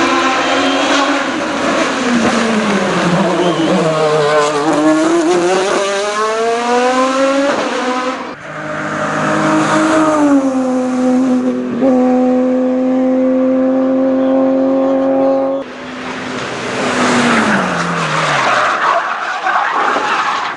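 Hill-climb race car engines at high revs: the pitch drops as a car brakes and downshifts, then climbs again through the gears. The sound switches abruptly to another car's pass three times, once holding one steady note before falling away.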